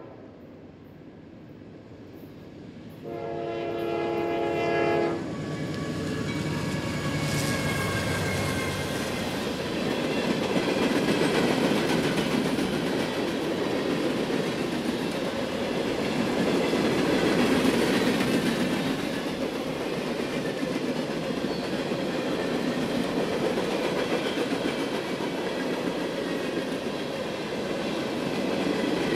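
Norfolk Southern freight locomotive horn sounds a short note, then a longer blast about three seconds in. The train then passes, and a long string of empty hopper cars rolls by steadily with wheels clacking over the rail joints.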